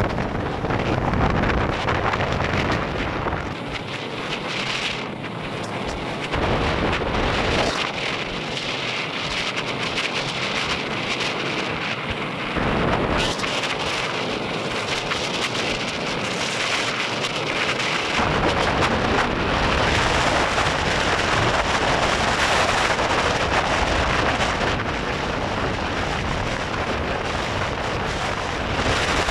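Steady rush of wind and road noise from a car driving at highway speed, with wind buffeting the microphone. The lowest rumble drops away for a stretch from about 4 to 18 seconds in, then comes back.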